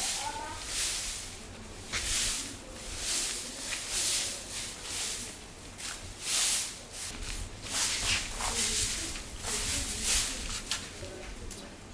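A broom sweeping the ground in repeated short swishing strokes, about one a second. A brief high chirp sounds right at the start.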